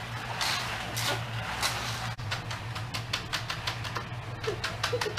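Irregular scraping and ticking strokes, coming faster about halfway through, over a steady low hum.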